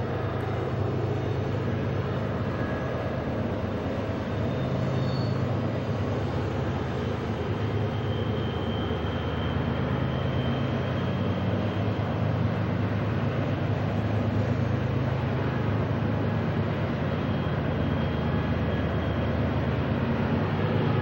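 Diesel locomotives of a heavy freight train working upgrade, a steady low engine drone over the rumble of the rolling cars, growing slightly louder. A few faint high squeals come from wheels on the curve.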